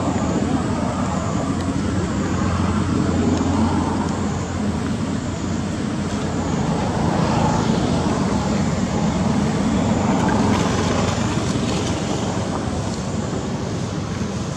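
Road traffic rumbling steadily, swelling twice as vehicles pass.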